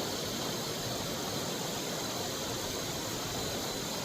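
Steady rush of running water, an even hiss with no changes or distinct events.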